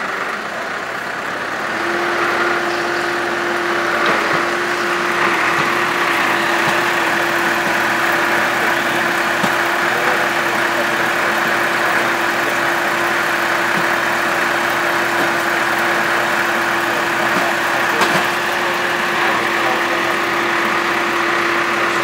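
Tractor engine running steadily to drive a tractor-mounted Tajfun forestry winch as it reels in its wire rope to skid logs uphill; the engine picks up and gets louder about two seconds in and then holds a steady note. One sharp knock near the end.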